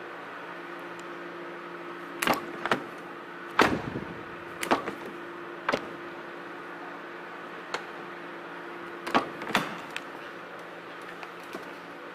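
A run of sharp clicks and knocks from a car door being handled: a hand on the Genesis GV80's driver's door and handle, then the door latch releasing as the door is opened, over a steady low hum.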